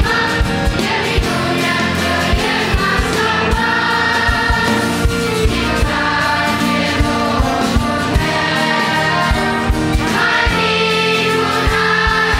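Children's choir singing a Romanian Christian hymn, accompanied by a live band with a steady drum beat.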